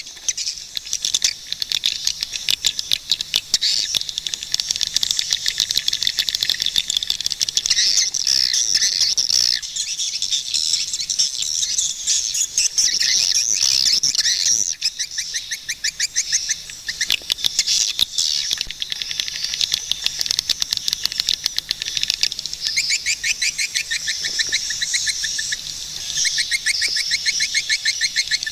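Swiftlets calling: a dense, continuous stream of rapid high chirps and twitters.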